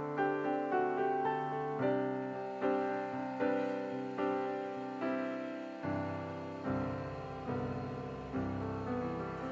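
Background piano music: a slow, gentle melody of single notes struck about once or twice a second, each fading away.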